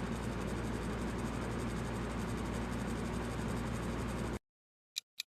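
Ceiling fan running: a steady whirring rush with a low hum under it, cutting off suddenly about four seconds in.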